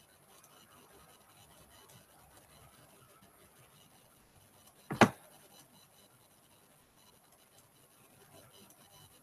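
Faint scratching and rubbing, with one sharp thump about halfway through.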